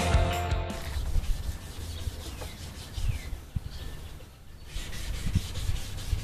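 Rock music cuts off under a second in; then hand wet sanding of a wooden table top with fine-grit sandpaper and water, repeated rubbing strokes.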